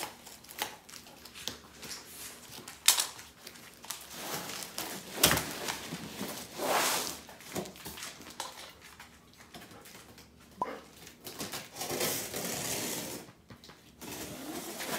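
A large cardboard shipping box being opened and handled: irregular tearing, scraping and rustling of cardboard with sharp clicks, and longer rasping stretches about halfway through and near the end.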